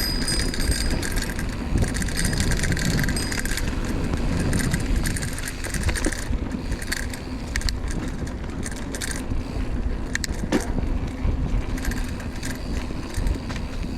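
Mountain bike rolling down a dirt trail: a steady rush of wind and tyre noise with the chain and bike parts rattling and clicking over bumps, the rattling busiest around the middle.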